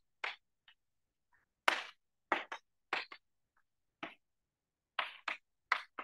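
Chalk writing on a blackboard: a string of short, irregular scratches and taps as the letters are written, the sharpest stroke a little under two seconds in.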